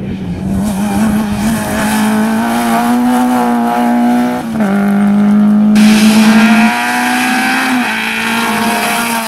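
Rally car engines running hard at high revs, a steady engine note that jumps in pitch and loudness several times as the shots cut from car to car.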